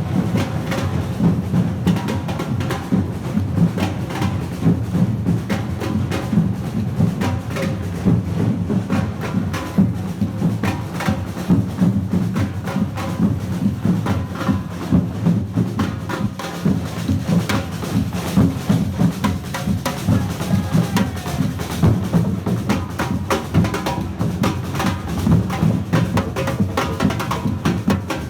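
Carnival percussion band playing a fast, steady drum rhythm: low drums carrying the beat under sharp wood-block-like clicks.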